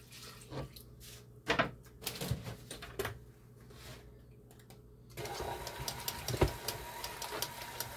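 A few knocks and clatter as the plastic milk jug is handled. Then, about five seconds in, a KitchenAid stand mixer switches on and runs steadily, its motor humming with a regular ticking as the beater churns the sausage-ball dough. There is one sharp knock a second later.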